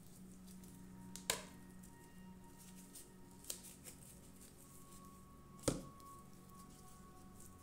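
Handling noise of a plastic tray and small craft tools: three sharp clicks, about a second in, midway and near the end, with a few fainter taps between.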